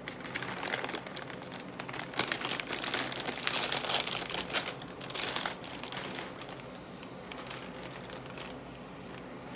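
A clear plastic bag of cereal crinkling as it is handled and pulled open. The crinkling is busiest for the first five seconds or so, then thins to a few faint rustles.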